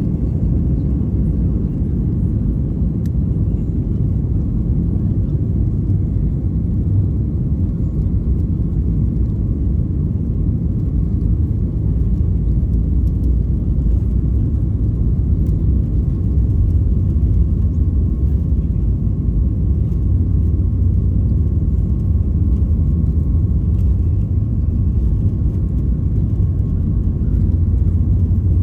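Cabin noise of a Boeing 737-8 MAX with its CFM LEAP-1B engines running: a steady, loud low rumble with a faint whine above it, growing slightly stronger near the end.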